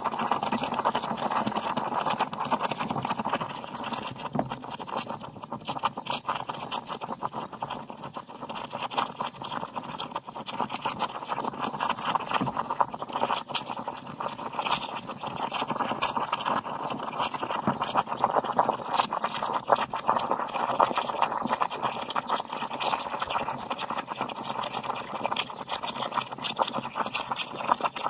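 Steam wand of a Sboly steam espresso machine frothing milk in a mug: steady steam hiss with a dense, rapid crackling sputter as the steam breaks into the milk.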